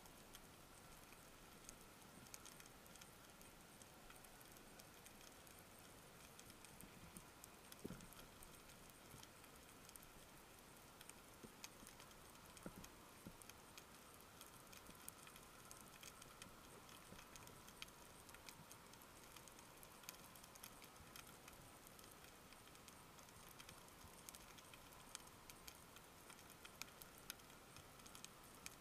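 Near silence underwater: a faint, sparse crackle of tiny clicks over a faint steady high hum, with a couple of soft low thumps.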